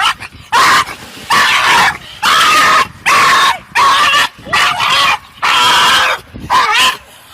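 A dog barking loudly over and over, about eight long barks in a row.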